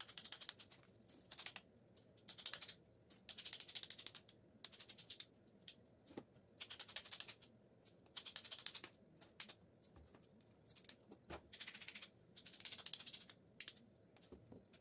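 A small hand hammer tapping on metal parts of a dismantled lighting ballast, to free the copper windings for scrap. It comes in short bursts of quick, light taps with brief pauses between them.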